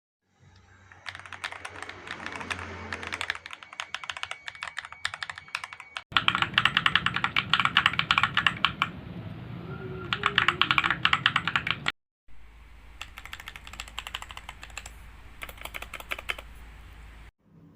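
Fast typing on a mechanical keyboard with Akko V3 Cream Pro switches: a dense stream of key clacks, in three takes that start and stop abruptly. The middle take is the loudest.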